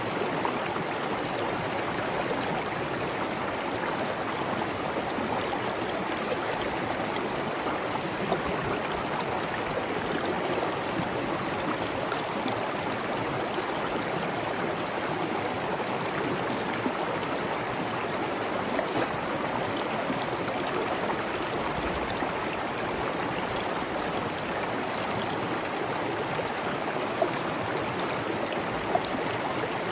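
Steady flowing water, a stream running and trickling without let-up, with a few faint splashy clicks.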